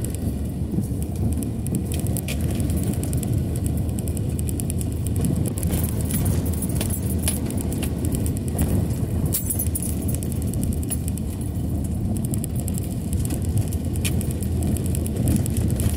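Car driving through standing floodwater, heard from inside the cabin: a steady low rumble of tyres and water spray under the car, with scattered ticks of water and rain striking the body and windshield.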